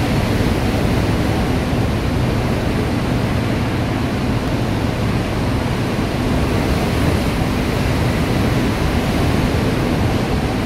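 Steady, unbroken roar of hurricane wind and heavy rain.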